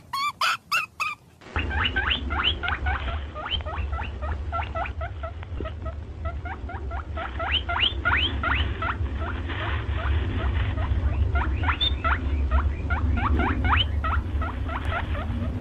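Rapid, repeated short rising squeaks from a small animal, rodent-like, starting about a second and a half in over a low steady rumble.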